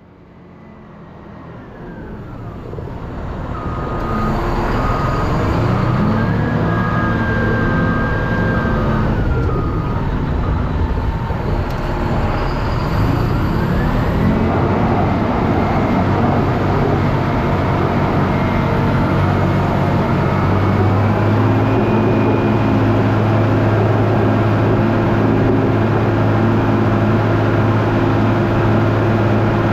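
Vehicle engine running, fading in over the first few seconds, its pitch rising and falling a couple of times before it settles into a steady drone.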